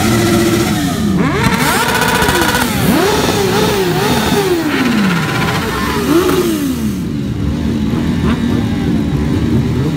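Several sport motorcycle engines revving over and over, their pitch rising and falling in quick overlapping revs. After about seven seconds they settle to a steadier, lower engine tone.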